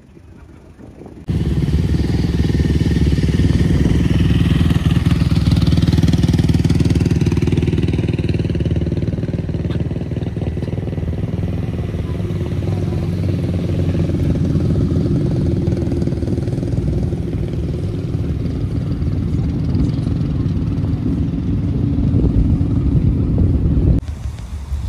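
A vehicle engine idling close by, a low, steady rumble. It starts suddenly about a second in and stops suddenly near the end.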